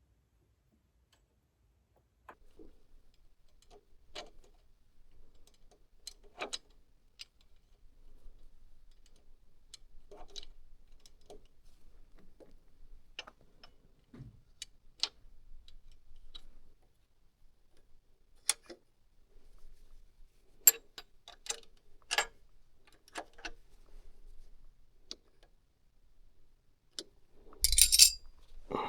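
Scattered, irregular light clicks and taps, beginning about two seconds in, with a louder rustling burst near the end.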